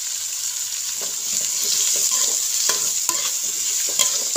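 Sliced onions frying and sizzling in hot oil in a heavy metal kadai, being stirred with a flat metal spatula that scrapes and clicks against the pan several times. The onions have just been salted and are being sautéed until soft.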